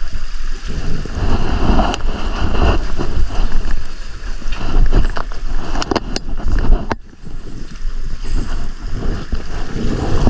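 Strong wind buffeting the microphone, a loud unsteady rumble, with a few sharp clicks about six to seven seconds in.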